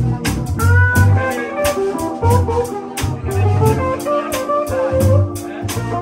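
Live band of electric guitar, electric bass, keyboard and drum kit playing a jazzy groove, with a melodic lead line over a steady cymbal beat and a strong bass line.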